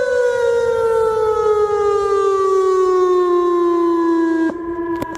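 Whelen WPS-2910 electronic tornado siren sounding its Alert signal, a loud single tone with overtones, sliding slowly down in pitch as it winds down. Near the end the upper tones drop away and it gets quieter.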